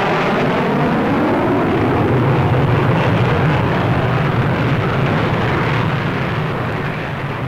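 Jet noise from the Avro 698 delta bomber's four Rolls-Royce Avon engines as it flies past low and climbs away. The sound is loud and steady, with a deep rumble, and eases off slowly near the end.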